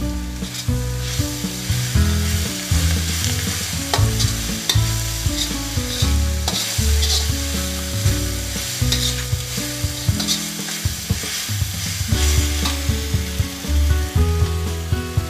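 A steel spatula stirring and scraping around an iron kadai, in repeated strokes, while onions and spices sizzle and fry in hot oil. Low held notes change pitch in steps underneath.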